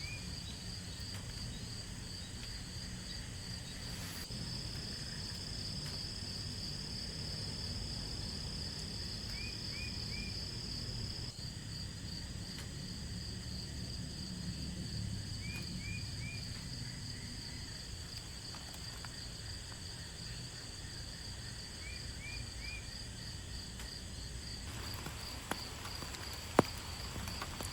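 Insects chirping steadily in an evenly pulsing high trill, with a short run of three quick chirps coming back about every six seconds, over a low rumble. A single sharp click near the end.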